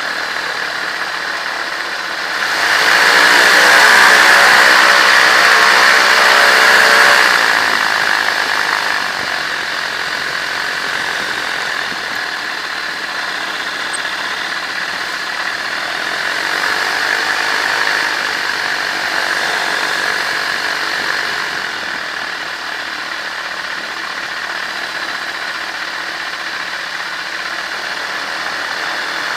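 Microlight trike's engine and propeller running at low power while taxiing on grass. Between about two and seven seconds in it gets louder and rises in pitch, then drops back to a steady idle.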